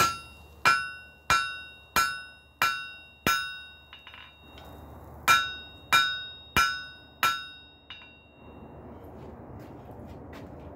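Hand hammer striking folded flat bar at welding heat on a steel anvil, each blow ringing: six strikes about one and a half a second, a short pause, then four more, setting a forge weld. After the blows stop, a steady rushing noise.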